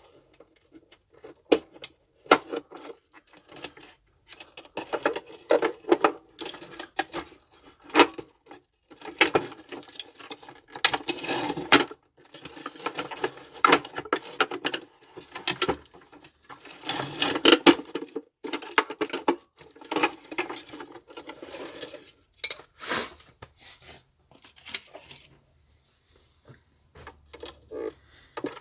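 Hard plastic parts of a vacuum cleaner clicking, knocking and rattling as it is taken apart by hand, with tabs being unclipped and pieces handled. Irregular sharp clicks and clatter, quieter for a moment near the end.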